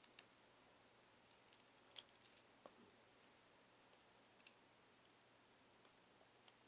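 Faint, scattered clicks of a stiff plastic Beyblade Dimension driver being twisted in the fingers, about seven small clicks spread over several seconds.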